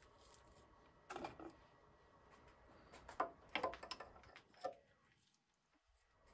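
Faint, scattered clicks and light knocks of a threading die in its die stock being handled and set onto the end of a brass workpiece, with a small cluster of clicks a little past the middle.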